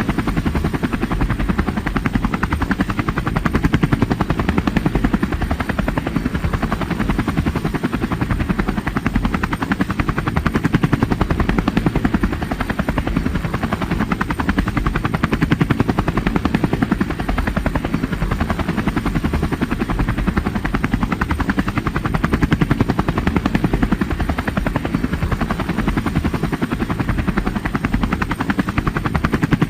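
Helicopter in flight: a steady, rapid rotor-blade chop over dense engine noise.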